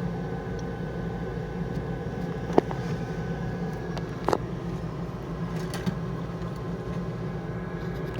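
Steady low engine hum, with a few brief knocks about two and a half and four seconds in.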